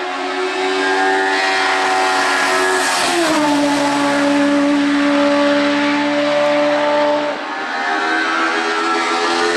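Hill-climb race car engine running hard at high revs, its pitch falling sharply about three seconds in, then shifting again with a brief dip in level near the end.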